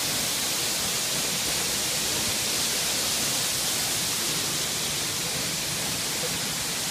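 Steady rushing of a waterfall pouring into its plunge pool, an even hiss that does not change.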